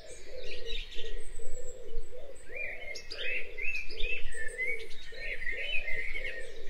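Birdsong: short high chirping calls over a low note repeated about twice a second.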